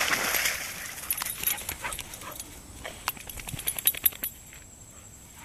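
Young Labrador wading and splashing through shallow water: a burst of sloshing at the start, then a string of short sharp splashes and clicks that die away about four seconds in.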